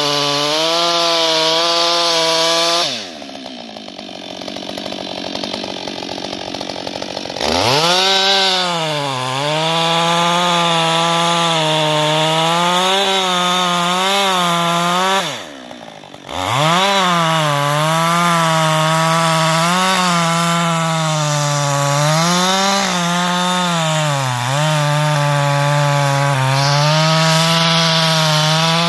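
Husqvarna 560XP two-stroke chainsaw cutting through a thick log at full throttle, its pitch sagging and recovering as the chain bites under load. Twice the throttle is let off and the engine drops toward idle: about three seconds in for around four seconds, and briefly near the middle. Each time it revs straight back up into the cut.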